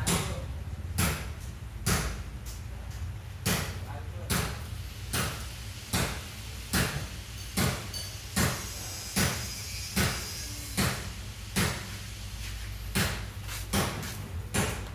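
A steady run of sharp knocks, about one every 0.8 s with two short breaks, over a low steady hum.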